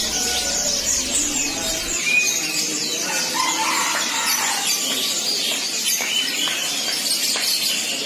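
Chorus of many caged songbirds, canaries among them, chirping and trilling all at once in dense, high, rapid phrases.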